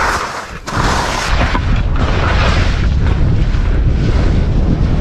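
Avalanche wind blast buffeting the microphone: a loud, deep, steady rushing roar that comes in suddenly just under a second in.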